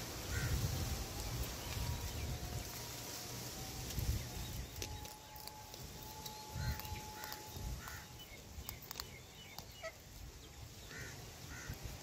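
Parrots chirping: short calls in quick pairs, repeated several times, over a low rumble. A few sharp clicks come about two-thirds of the way in.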